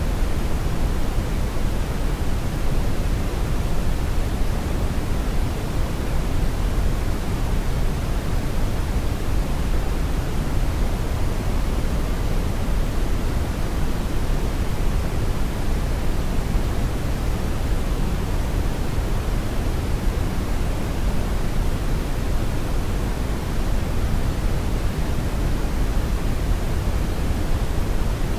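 Brown noise: a steady, unchanging rumbling hiss, heaviest in the low end.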